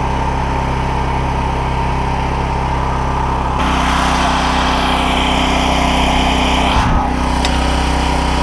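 Small engine running steadily, its note stepping up to a higher speed about three and a half seconds in.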